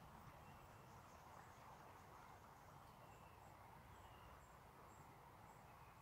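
Near silence: faint outdoor ambience, a soft steady hiss with a few faint, short, high chirps now and then.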